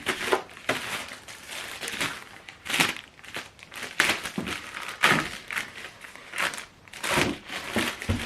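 Recycled paper packaging crinkling and rustling in irregular bursts as it is handled and unwrapped.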